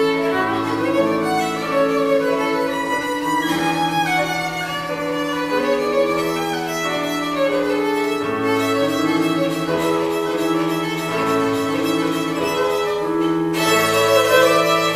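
Violin bowed in a slow melody of held notes, accompanied by an electronic keyboard playing low sustained notes underneath.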